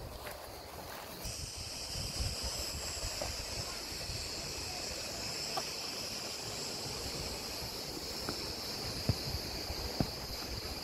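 Outdoor walking ambience: low wind rumble on the microphone under a steady high hiss that sets in about a second in, with a few sharp footstep clicks near the end.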